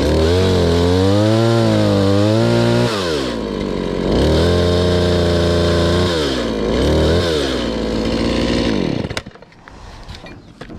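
Chainsaw engine running at high revs while cutting tree limbs, its pitch wavering under load. The revs sag about three seconds in, pick up again, and the saw winds down and stops about nine seconds in.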